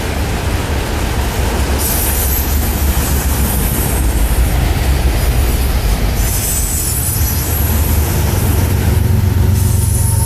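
Autorack freight cars rolling past at speed: a steady rumble of steel wheels on rail, with high-pitched wheel squeal coming and going in stretches. Near the end a GE Evolution Series diesel locomotive (Union Pacific 7964) comes alongside, and its engine joins the rolling noise.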